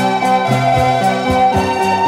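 Instrumental background music with a steady rhythm of short pitched notes.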